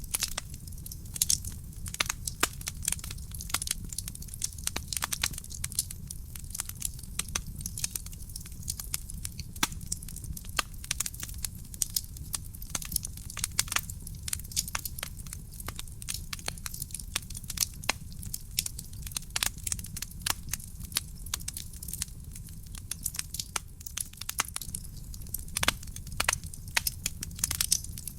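Wood fire burning in a fireplace: dense, irregular crackles and snaps over a steady low rumble of the flames.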